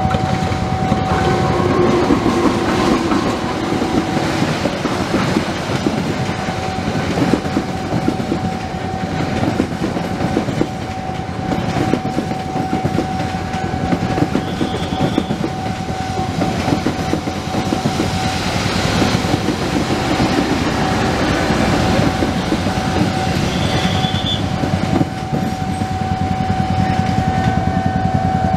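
Argo Parahyangan passenger train passing close by, its wheels clattering over the rail joints, while a level-crossing warning tone sounds steadily.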